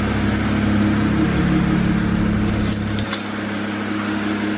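BMW 335is's N54 twin-turbo inline-six idling steadily, with a brief metallic jingle and clicks about two and a half seconds in.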